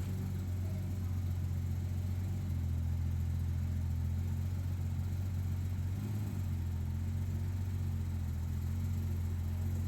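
Porsche 991.2 GT3's flat-six engine idling steadily through its newly fitted titanium Valvetronic exhaust.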